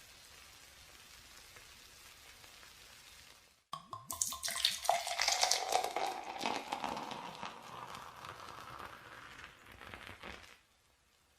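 A steady low hiss, then a fizzy drink poured into a glass: a splash at the start, then a crackling fizz over the pour, whose tone rises as the glass fills, stopping abruptly near the end.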